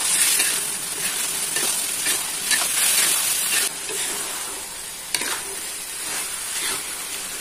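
A metal spatula scraping and tossing baby corn, beef meatballs and vegetables around a metal wok, over a steady sizzle of the sauce frying. The stirring is loudest for the first three or four seconds, then quieter.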